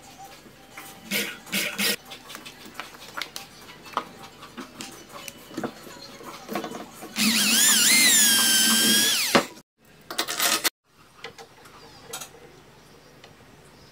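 Electric drill running for about two seconds as it bores a hole in an MDF cabinet panel, its whine wavering in pitch under load, then cutting off. Short knocks and light handling clicks come before and after it.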